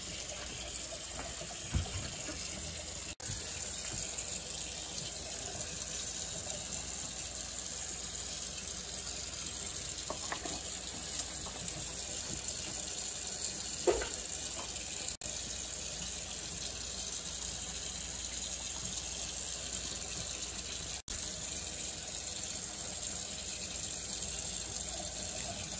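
Steady hiss of running water, like a kitchen tap left on, with a light knock about two seconds in and a sharper knock about fourteen seconds in.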